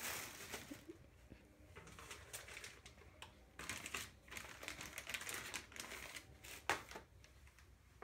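Plastic packaging and a bag crinkling and rustling as they are handled and pulled out of the dryer drum, in irregular short crackles.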